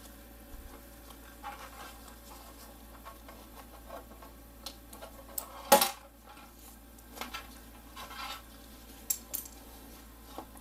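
A laptop's metal bottom cover being pried loose with plastic prying tools: scattered clicks and short scrapes as the cover's edge comes free, the loudest a sharp snap about halfway through.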